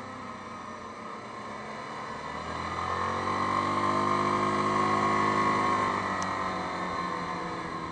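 Yamaha Grizzly 550 ATV engine running while riding on the road. Its note swells and climbs from about two and a half seconds in, is loudest around five seconds, then eases off near the end.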